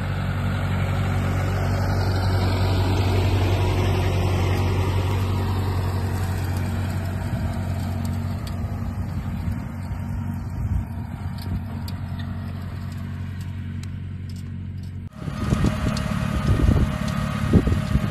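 Tractor engine running steadily as it pulls a rotary hoe through dry, crusted soil, easing off a little as it moves away. About fifteen seconds in, the sound cuts to a rougher, uneven noise up close behind the hoe's spinning star wheels.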